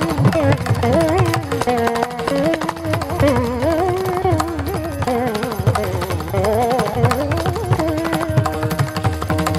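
Carnatic veena melody with deep sliding, oscillating pitch bends, accompanied by mridangam and kanjira strokes; the melody settles on a long held note near the end.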